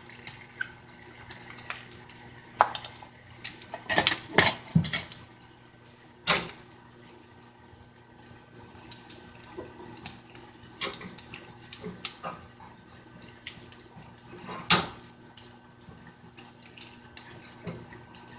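A cooking utensil clinking, knocking and scraping against a pan as flour is stirred into melted butter and chicken to make a roux. The clinks are irregular, with a quick run of knocks about four seconds in and single sharp knocks around six and fifteen seconds in.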